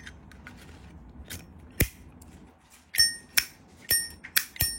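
An Armor Zippo lighter's lid being flicked open and snapped shut, a few soft clicks of handling at first and then, about three seconds in, sharp metallic clacks about twice a second, each with a brief ringing ping.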